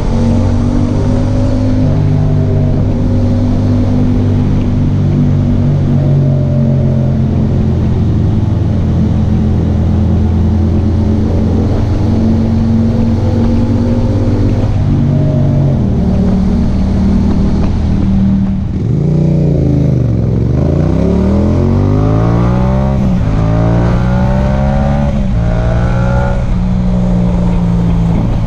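Yamaha MT-07's 689 cc parallel-twin engine running at a steady pitch. About two-thirds of the way in it drops off briefly, then revs up hard through two quick upshifts before settling back to a steady run.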